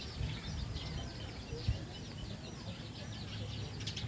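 Many small birds chirping continuously in quick, overlapping short calls, over a low steady rumble.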